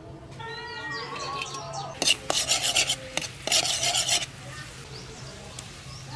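A metal ladle stirring and scraping chopped garlic that sizzles in hot oil in a wok, in two loud spells about two and three and a half seconds in. Birds chirp during the first two seconds.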